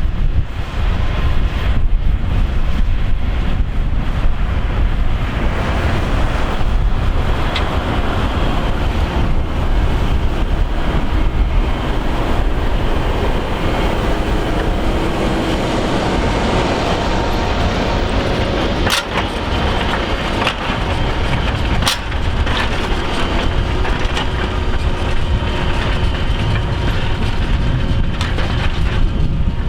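Fendt 724 tractor running steadily under load as it pulls a five-furrow plough up a steep bank, with a heavy low rumble. Two sharp ticks come about two-thirds of the way through.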